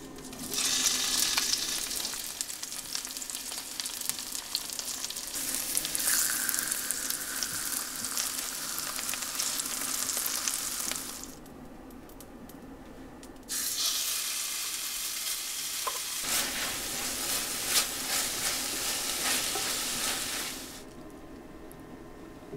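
Food sizzling and crackling in hot oil in a stainless steel frying pan. The sizzle stops abruptly about halfway, and after a two-second pause it starts again just as abruptly.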